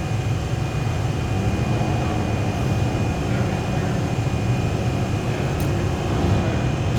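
A lathe running steadily: a constant low rumble with a thin, steady high whine over it.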